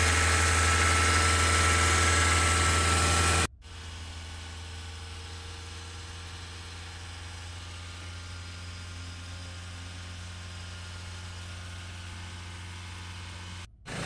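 Mahindra XUV500 engine idling steadily, its freshly replaced accessory belt and tensioner turning with no rattle. About three and a half seconds in the level drops sharply, and the same steady idle carries on more quietly.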